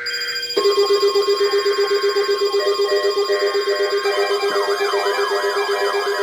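Emergency Alert System broadcast alert: the end of a S.A.M.E data burst about half a second in, then a loud pulsing electronic attention tone with rapid rising-and-falling siren-like sweeps over it.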